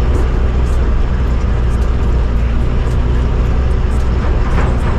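Bus cab noise while driving on a rough, potholed dirt road: a loud, steady low engine and road rumble, with faint small clicks over it.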